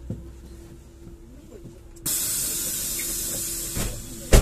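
A LAZ E301D1 trolleybus's pneumatic door gear releases compressed air in a sudden hiss of about two seconds, ending in a loud thump as the doors shut. Under it runs a steady electric hum.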